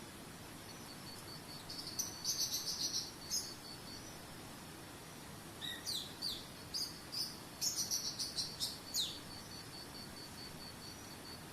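Songbirds singing in two bursts of rapid chirps, the second with quick down-slurred whistles, over a steady high pulsing insect trill and a soft even hiss.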